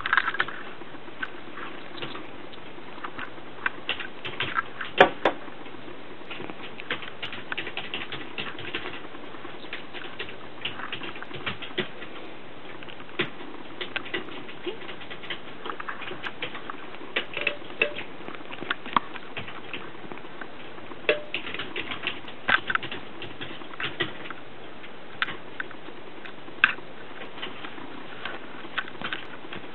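A cat sucking and licking on a person's hand close to the microphone: irregular wet smacking clicks, a few a second, over a steady hiss.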